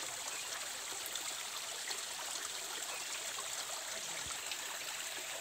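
Small stream of water trickling over rocks and falling into a shallow pool, a steady, even splashing.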